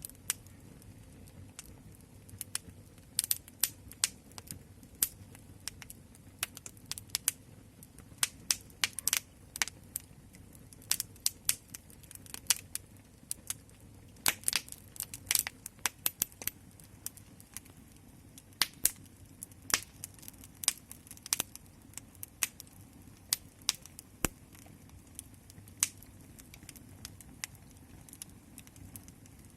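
Wood fire crackling: irregular sharp pops and snaps, sometimes several in quick succession, over a low steady rumble.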